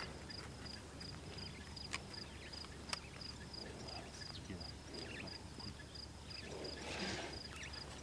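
Faint insect chirping, an even high pulse about three times a second. Two sharp clicks come about two and three seconds in, and a short rustle comes near the seventh second.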